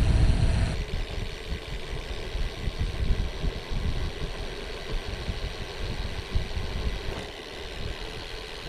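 Wind buffeting the microphone of a moving bicycle, a fluttering low rumble with a faint hiss above it, louder for the first second and then easing.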